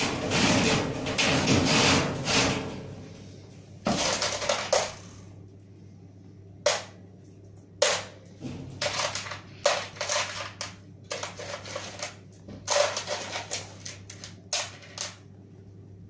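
Thin sheet-steel panels of a spray booth being handled and fitted: a couple of seconds of rustling noise at the start, then a string of sharp metallic knocks and clicks at irregular intervals.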